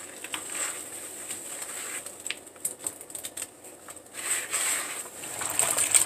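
Wet floral foam being crushed by rubber-gloved hands in a sink of soapy water: irregular wet crackling and sloshing, with louder swells about four seconds in and near the end.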